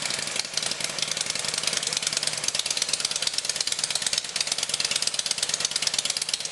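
Motorcycle engine idling steadily just after being started, with a rapid, even firing pulse.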